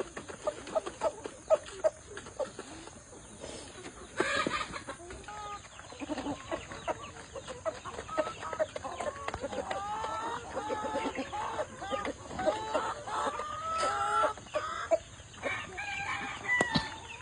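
A flock of chickens clucking and calling, with many short calls overlapping. The calls grow thicker and louder over the second half, and one louder call comes about four seconds in.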